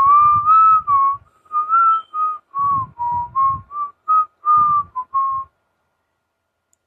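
A person whistling a short, wandering tune of about a dozen notes, which stops about five and a half seconds in.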